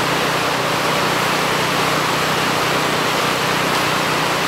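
Steady rush of whitewater from a river rapid, an even unbroken roar.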